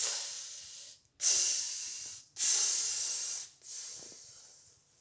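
A person breathing out hard into the microphone four times, about a second apart, each breath starting sharply and fading away.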